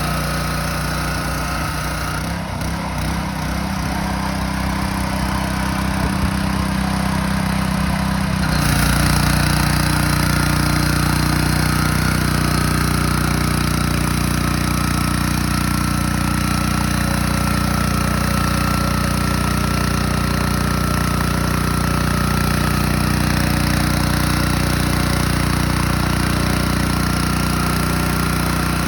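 Honda engine of a pressure-washer surface cleaner running at a steady speed. About eight seconds in the sound shifts and gets slightly louder, and a steady higher whine joins the engine note.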